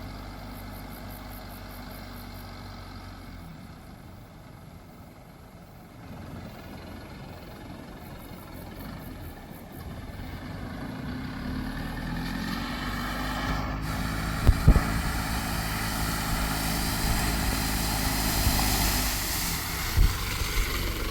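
The Holden Rodeo's 2.8-litre 4JB1T turbo diesel engine running steadily, growing louder through the second half with rising road and wind noise. A few sharp thumps come in the second half.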